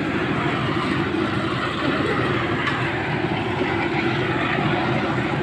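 A machine running steadily with an even, rough drone that doesn't let up.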